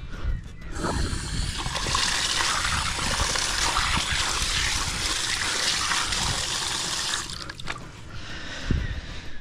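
Water from the line at the meter surging up through a flooded trench around the pipe fitting, a steady gushing splash that starts about a second in and stops suddenly about seven seconds in.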